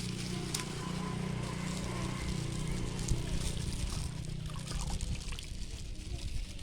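Liquid trickling and pouring: galangal stem sap, collected in a plastic bag, being poured out.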